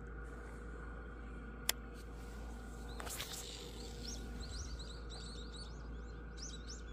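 Small birds chirping in quick runs of short rising notes, starting about four seconds in and growing busier toward the end, over steady low background noise. A single sharp click comes just under two seconds in.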